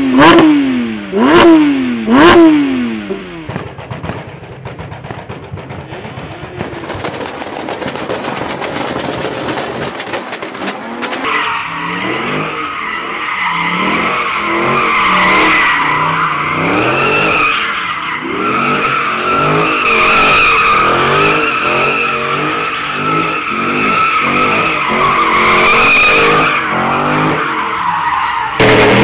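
A car engine revved hard three times in quick succession, then a car spinning its rear tyres in a smoky burnout drift: about a third of the way in a steady high tyre screech sets in and holds almost to the end, with the engine revs rising and falling beneath it.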